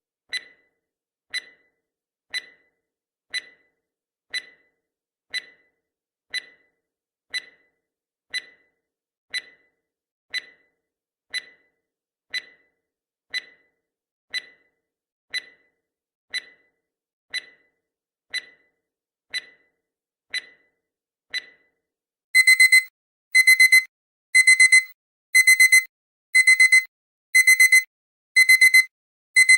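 Countdown timer sound effect: a short tick about once a second, 22 in all, then the alarm goes off in loud pitched beeps about once a second, each lasting about half a second.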